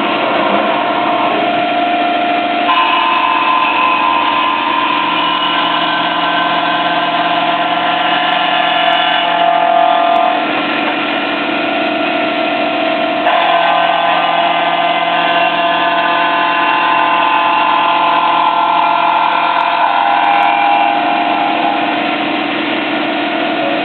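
Fadal CNC milling machine running, a steady mechanical whine of several tones whose pitches shift a few times as the cut goes on.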